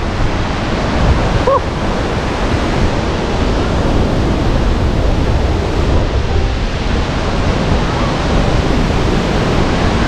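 Athabasca Falls in flood: the steady, loud roar of churning whitewater pouring over the falls, the river swollen with mountain snowmelt.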